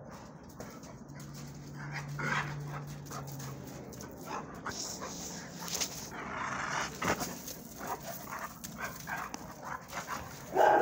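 Two dogs play-wrestling up close: short dog vocal sounds among scuffling and scraping on gravel, with the loudest burst near the end.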